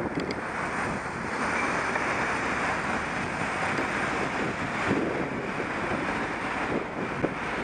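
Steady wind rush on the microphone of a camera mounted on a moving bicycle, with road and traffic noise under it.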